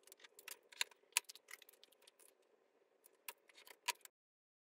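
Light clicks and taps of a steel ruler, a utility knife and a pen being handled and set down on a workbench top, over a faint steady hum. The sound cuts off abruptly about four seconds in.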